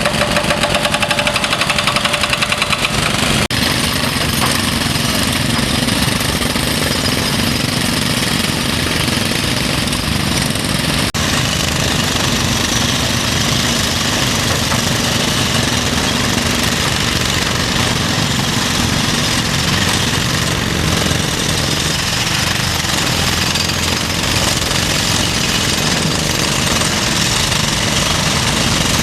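Excavator-mounted hydraulic breaker hammering rapidly over the din of diesel construction machinery; the sound changes abruptly about three seconds in and again about eleven seconds in.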